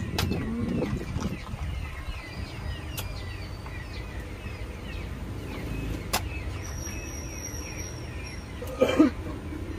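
Small birds chirping over and over in the background over a low steady hum, with a few sharp clicks and a brief louder knock near the end.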